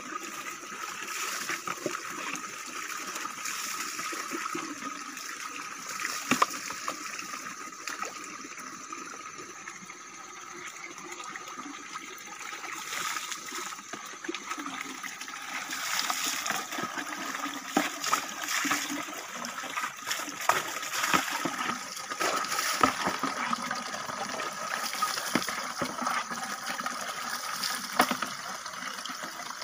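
Water pouring steadily from an open pipe spout and splashing onto the ground, with sharper splashes now and then as water is scooped from a bucket with a dipper and poured.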